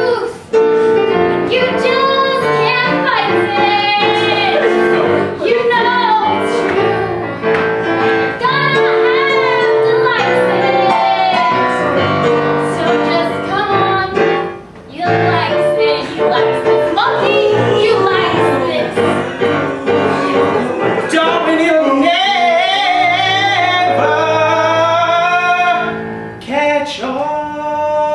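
An improvised song sung live, led by a woman's voice with vibrato, over sustained piano or keyboard chords. The music dips briefly about halfway through.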